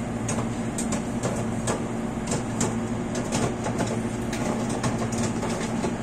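White-Westinghouse WMW30VS microwave oven running: a steady electrical hum with fan noise and scattered clicks.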